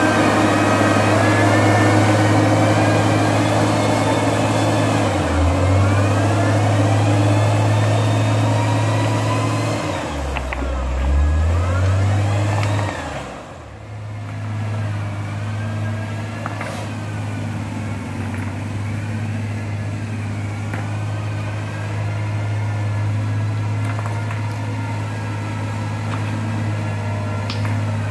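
Engine of road construction machinery running steadily, its note dipping and recovering a couple of times as if under load, with a brief lull about thirteen seconds in.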